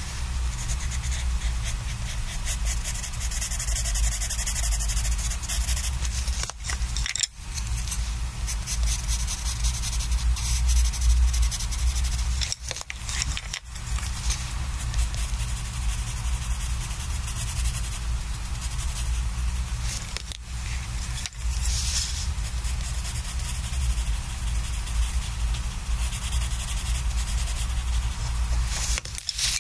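Prismacolor Premier coloured pencil rubbing on sketchbook paper in rapid short shading strokes, with a few brief pauses as the pencil is lifted, over a low steady hum.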